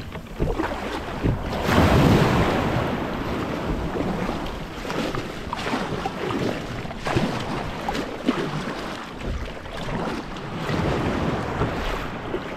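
Kayak paddle strokes splashing while shallow broken surf washes around the hull, with wind on the microphone. The water noise swells loudest about two seconds in.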